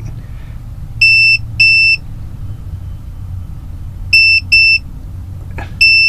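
Electronic continuity tester beeping as the brake light switch it is clipped to makes contact. There are five short, high-pitched beeps: two about a second in, two more about four seconds in, and one near the end.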